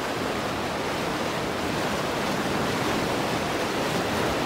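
Whitewater rapids of the Coppermine River rushing over rocks, a steady, unbroken sound of fast water.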